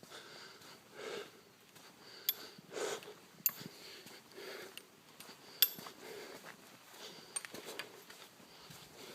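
A hiker breathing hard and rhythmically while climbing, about one breath every second and a half to two seconds. A few sharp clicks fall between the breaths.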